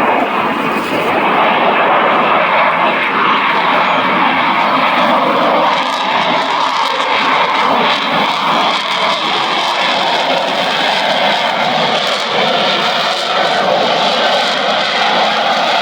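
Jet noise from an F-35 Lightning II's F135 afterburning turbofan during an airshow pass: a loud, steady roar with only slight swells.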